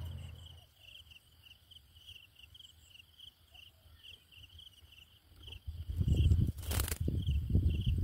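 Insects chirping steadily in a fast, even pulsing trill. About six seconds in, bursts of low rumbling noise begin and become the loudest sound, with a brief crackle just before the seventh second.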